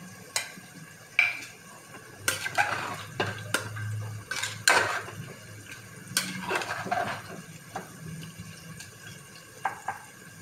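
A spatula scraping and knocking against the sides of an aluminium pressure cooker as thick masala is stirred, with a number of sharp knocks spread through.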